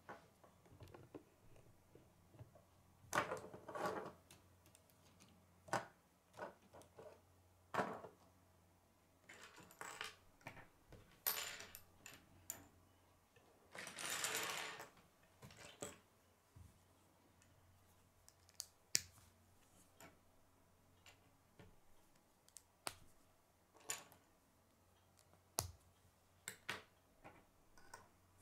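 K'nex plastic rods and connectors clicking and clattering as they are handled, snapped together and set down on a wooden tabletop. Scattered sharp clicks, with a few longer rustling clatters, the longest about 14 seconds in.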